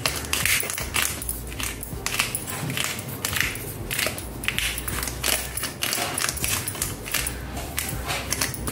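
Black peppercorns being crushed over a bowl of flour: a dense, irregular crackling crunch of many small cracks.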